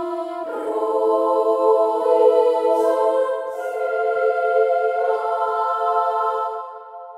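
Slow background music of long held chords, possibly choral, moving to a new chord every couple of seconds and dipping quieter just before the end.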